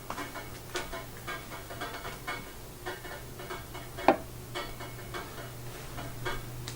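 Light kitchen handling sounds: scattered small clicks and taps of dishes or utensils, with one sharper knock about four seconds in, over a steady low hum.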